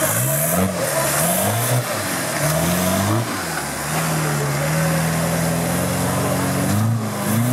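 Suzuki Vitara-based off-road special's engine revving under load: quick blips up and down for the first few seconds, then held at steadier, slowly rising revs.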